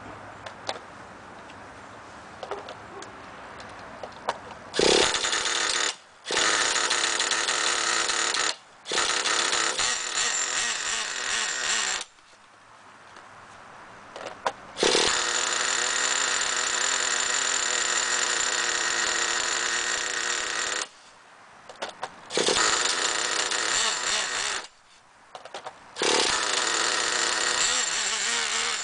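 Electric starter cranking the Traxxas Jato 3.3's nitro glow engine in six bursts of steady whirring, each one to six seconds long and stopping sharply: the engine being turned over to get it started. Small clicks from handling the truck come first.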